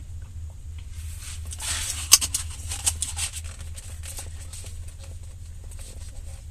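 Close-up eating and food-handling noises: crackly rustling and irregular clicks, with one sharp click about two seconds in, over a steady low hum.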